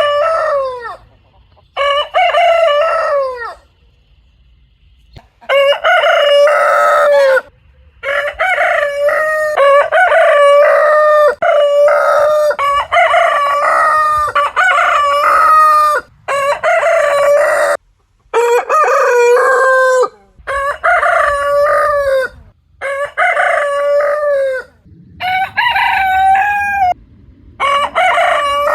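Rooster crowing, about a dozen full cock-a-doodle-doo crows in quick succession, each one to two seconds long, with brief silent gaps between them.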